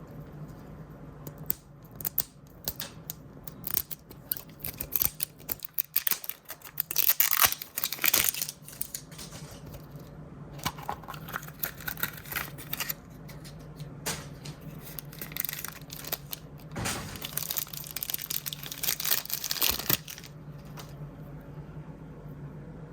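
Crinkly blind-bag packaging being handled and torn open, in irregular bursts of crinkling, tearing and small clicks. The loudest tearing comes about a third of the way in and again near the end, over a steady low hum.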